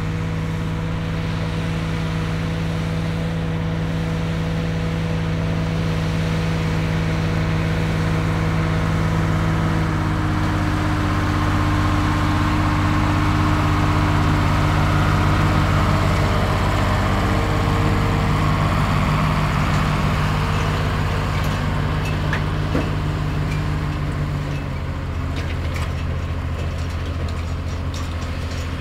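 Oliver 1950-T FWA tractor's diesel engine running steadily under load while baling hay. Its pitch drops slightly about ten seconds in and again near the end.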